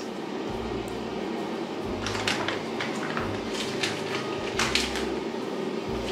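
Light clicks, knocks and rustles of kitchen items being handled at the counter as plain flour is weighed out from its packet, over a steady low hum. The knocks start about two seconds in and come several times.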